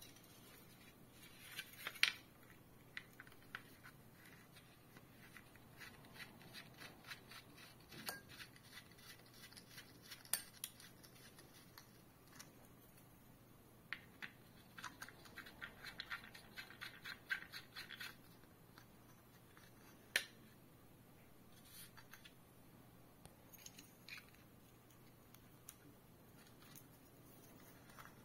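Plastic parts of a ceiling lamp being handled: the plastic frame and plastic standoff posts clicking and scraping together. The sound comes as scattered clicks and short runs of rapid clicking, with a sharper click about two seconds in and another about twenty seconds in.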